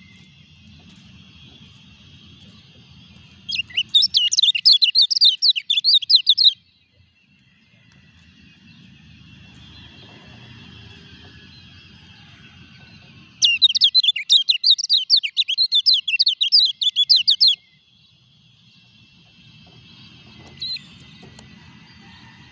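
Caged kecial kuning white-eye, in molt, singing two long bursts of rapid, high twittering chirps, each about three to four seconds long.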